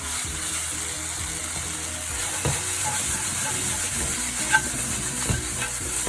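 Fried chicken pieces being stirred in a hot pan with onions, carrots and oyster sauce: steady sizzling, with the stirring utensil knocking against the pan three times.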